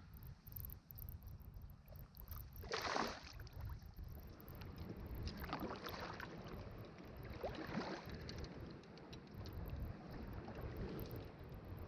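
Water swishing from kayak paddle strokes, three or four about two seconds apart, the first the loudest, over a steady low wind rumble on the microphone.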